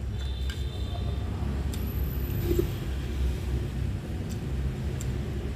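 Steady low background rumble, with a few faint light clicks of a fork against a plate.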